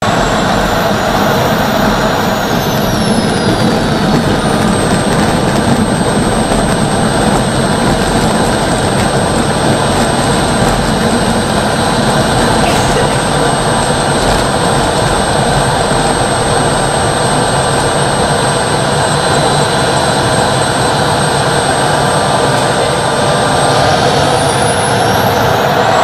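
Small gas-turbine engine of a radio-controlled model jet running on the ground, heard close up from on board: a steady loud rush with a high whine that drops in pitch a few seconds in and climbs again near the end.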